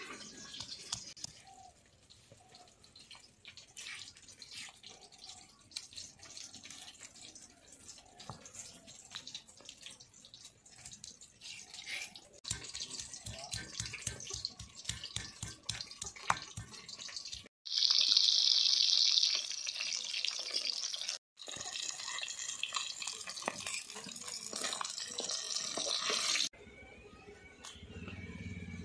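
A stone roller crushing and grinding ginger and garlic on a flat grinding stone (sil-batta), making irregular scraping and knocking of stone on stone, with a run of quick pounding strokes about halfway through. After a break there is a loud steady hiss for about two seconds, then a noisier stretch, and near the end a low hum.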